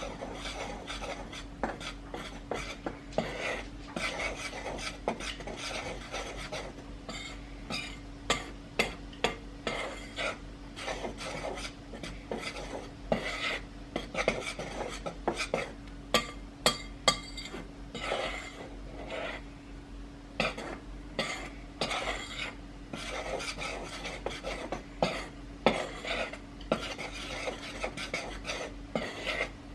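Dry cookie ingredients, including cornflour and pumpkin spice, being stirred together in a mixing bowl. A utensil scrapes around the bowl steadily, with frequent sharp clinks against its side.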